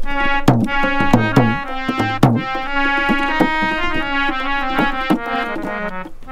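Harmonium and dholak played together. For the first two seconds or so, a quick run of dholak strokes gives low thumps that slide down in pitch. After that, the harmonium's held chords carry on with only a few light drum taps.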